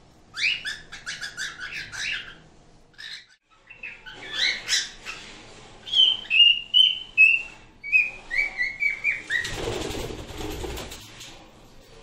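Pet cockatiels chirping and whistling: quick high chirps at first, then a run of short whistled notes that step down in pitch. A brief rustling noise follows near the end.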